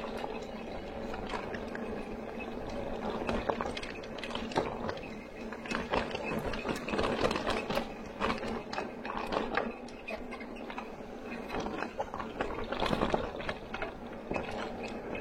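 Wheels rolling down a steep, rough dirt and gravel track: continuous crunching and rattling with many irregular clicks and knocks as the ride bounces over the surface, under a faint steady hum.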